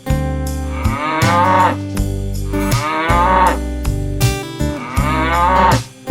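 A cow mooing three times, about two seconds apart, over steady background music.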